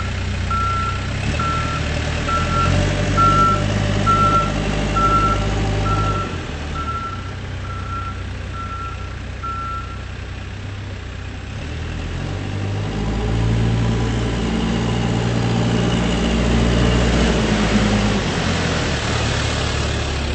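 Case 580N backhoe loader's back-up alarm beeping steadily, about fourteen beeps that stop about ten seconds in. Under it the diesel engine runs and changes pitch twice as it is throttled up and back down.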